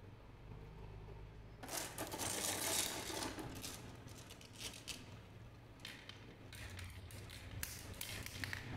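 Marbles clicking and rattling against each other and on a wooden marble-run track. A dense run of clicks starts about two seconds in, and scattered clicks come again near the end.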